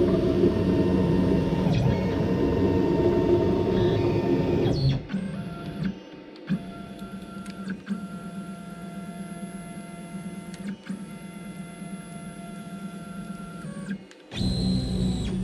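Stepper motors of a Onefinity CNC whining as the machine moves the router head around the table, several steady tones that change pitch with each move. Louder and rougher for the first five seconds and again near the end, quieter and clearer in between.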